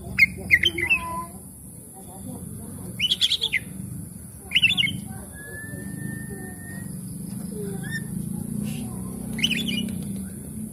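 Oriental magpie-robin singing: short bursts of quick, varied chirps and trills every few seconds, with one long, level whistle about five seconds in, over a low steady rumble.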